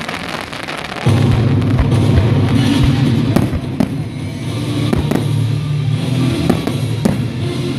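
Fireworks display with several sharp bangs of shells bursting, over music that gets suddenly louder about a second in.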